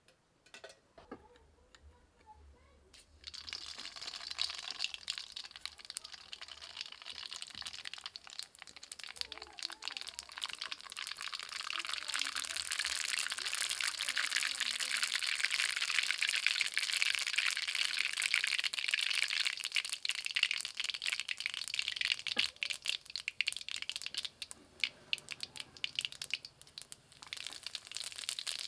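Cooking oil sizzling and crackling in a metal kadai, starting suddenly about three seconds in, growing louder through the middle, then thinning to scattered pops near the end.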